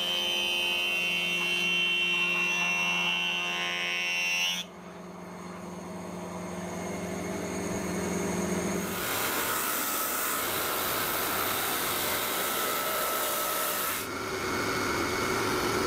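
Surface planer of a Hammer A3 planer-thicknesser running as end-grain boards are passed over its cutter block, the machine noise changing abruptly several times. About fourteen seconds in it gives way to a drum sander running with a board feeding through.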